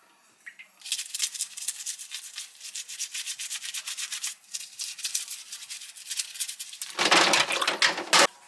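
Abalone being scrubbed in rapid back-and-forth strokes, starting about a second in and loudest for about a second near the end.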